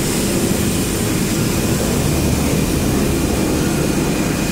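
Steady, even roar of a hot-air PVC welding machine running.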